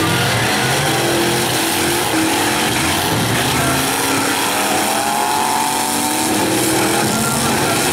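Several V8 demolition-derby car engines running and revving together. About midway, one engine's pitch climbs and then drops back.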